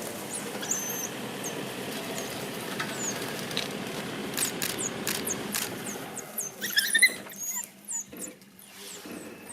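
African wild dogs giving high-pitched twittering squeaks and chirps, their typical social calls, with a burst of louder chirps about seven seconds in.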